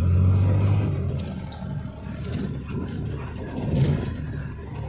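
Motor vehicle engine running with road noise while driving along a road. The low engine hum is loudest in the first second, then eases, with a brief swell a little before the end.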